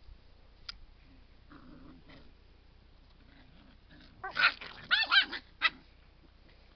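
Dogs at play: a short low growl, then a quick run of high-pitched yelps and barks for about a second and a half, some four seconds in.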